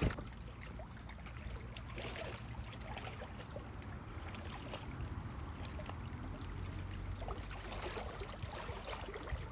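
Lake water lapping and trickling gently against a rocky shore, with faint small ticks and a steady low rumble underneath.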